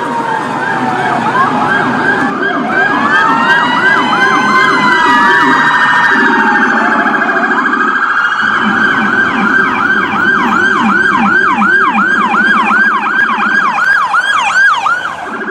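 Electronic emergency-vehicle sirens sounding together. A fast yelp sweeps up and down about three times a second over a lower, faster warbling tone, with slower wailing rises and falls in the first few seconds.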